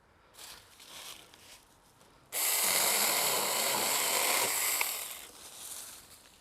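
Cordless Saker mini electric chainsaw with a 4-inch bar, cutting wood in one short burst of about two and a half seconds that starts suddenly and trails off. Light rustling comes before it.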